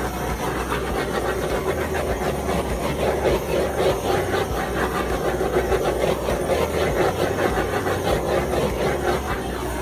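Steady mechanical running noise with a constant low hum underneath, unbroken throughout.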